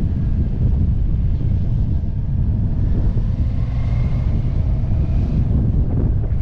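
Wind buffeting the microphone of a camera on a moving motorcycle: a steady low rumble, with the bike's engine and tyre noise mixed in underneath.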